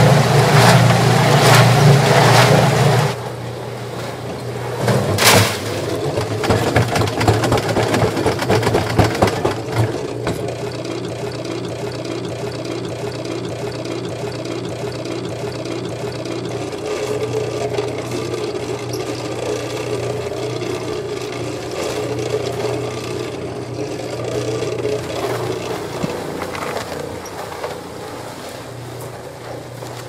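Small portable cement mixer running, its drum turning and churning a batch of wet dyed concrete. A steady motor hum with a rhythmic chug from the turning drum, with clattering and one sharp knock in the first ten seconds.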